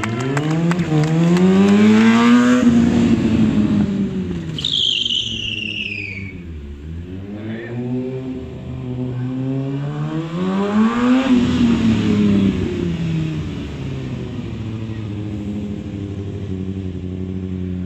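Kawasaki sport bike's engine revving up and falling back in two long swells, peaking about two seconds in and again about eleven seconds in, then running steadier and lower near the end. A brief high falling squeal about five seconds in.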